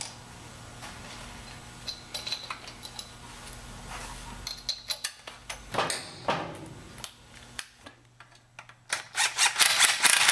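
Metal bolts clinking and tapping as the four pump bolts are set in place, then short bursts of a power driver with a 6 mm Allen bit running them in, the loudest burst near the end.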